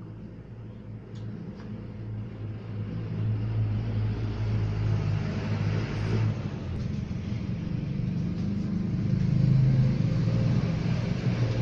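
Broadcast sound from a CRT television's speaker: a steady low rumble, like a vehicle engine, growing louder over several seconds.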